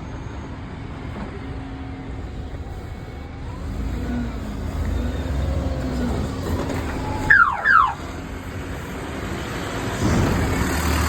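A bus's assault alarm sounded briefly by the driver: a loud pair of quick falling electronic sweeps about seven seconds in, over the bus engine's steady running.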